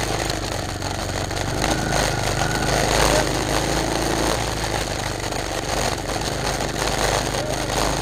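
X8 mini bike's small engine running steadily as the bike is ridden.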